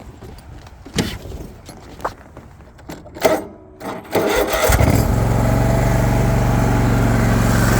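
A few short knocks, then about four seconds in the Hustler Raptor zero-turn mower's Kohler 24-horsepower V-twin engine cranks briefly on its starter and catches. It settles into a steady run.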